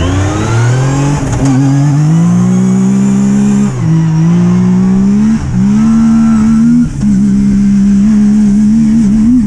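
Yamaha YXZ1000R side-by-side's three-cylinder engine accelerating hard under load. The pitch climbs, then drops sharply three times as it shifts up, about four, five and a half, and seven seconds in.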